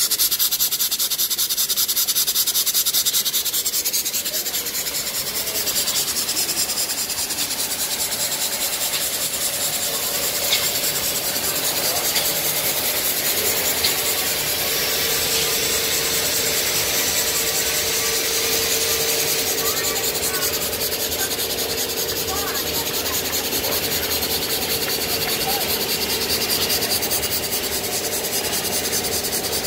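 Model steam engines running on live steam: a loud steady hiss of escaping steam with a rapid even beat from the running engines.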